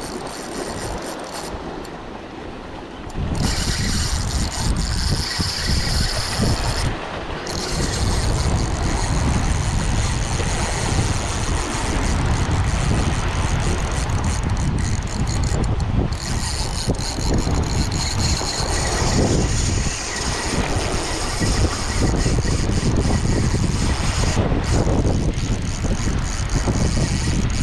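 Wind buffeting the microphone in a heavy low rumble that gets louder about three seconds in, over waves washing against jetty rocks.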